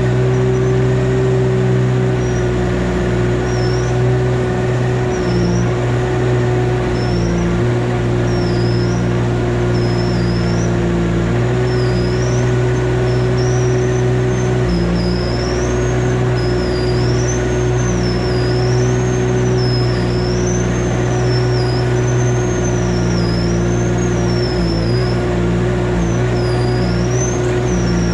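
A machine's engine running steadily, with a high-pitched whine that wavers up and down, more and more regularly in the second half.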